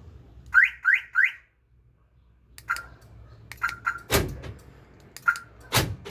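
Aftermarket car alarm siren giving short confirmation chirps as the key-fob remote locks and unlocks the van: three quick rising chirps about half a second in, then single and paired chirps, each followed by a sharp clunk of the central-locking door actuators.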